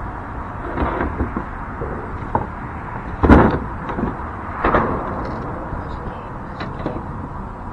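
A few knocks and thumps of gear being handled in a kayak over a steady background rush. The loudest knock comes a little under halfway through, with another a little over a second later.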